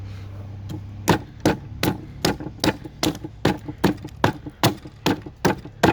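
A hatchet chopping into a cedar block, roughing out a carving blank. It strikes in quick, even strokes, about two and a half a second, starting about a second in.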